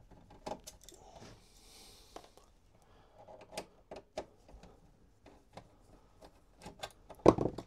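Hand screwdriver turning out the screws of a metal cable-clamp plate: scattered small clicks and ticks of tool and screw, with one louder knock near the end.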